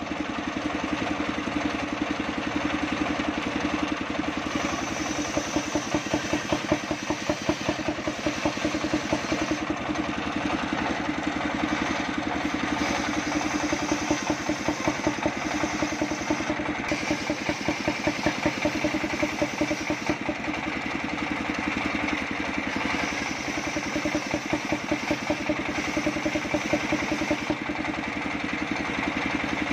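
Engine of a mobile sawmill running steadily with a fast, even pulse, driving a large circular saw through belts and pulleys as logs are fed into the blade. A higher sound from the cutting comes and goes in the second half.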